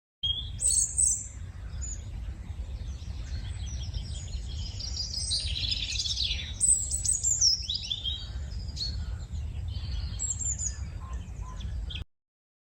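Birdsong ambience: many birds chirping and trilling together over a low steady rumble. It cuts off suddenly near the end.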